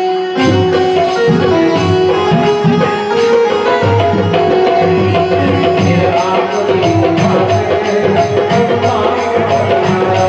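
Indian devotional music: tabla drumming under steady held notes, with a regular jingling percussion from about six seconds in.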